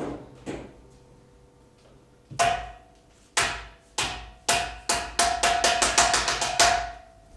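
A run of about a dozen sharp knocks. They start slowly, speed up, and stop abruptly, and each leaves a brief ringing tone.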